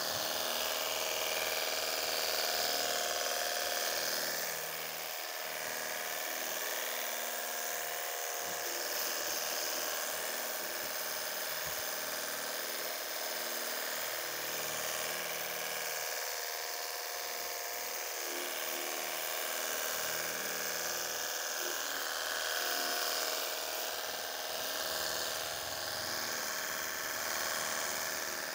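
A 48 V cordless battery pressure washer running steadily: its small motor and pump whine, with the hiss of the water spray from a 40-degree nozzle hitting car panels. It is a low-pressure unit, which the owner puts at about 20–30 PSI.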